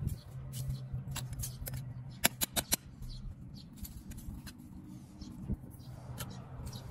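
Sharp taps or knocks, four in quick succession a little over two seconds in and a few scattered single ones, over a steady low hum.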